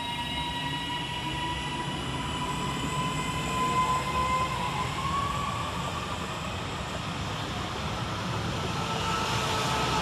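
Northern Class 331 electric multiple unit pulling away, its traction motors whining and rising in pitch over the rumble of wheels on the rails.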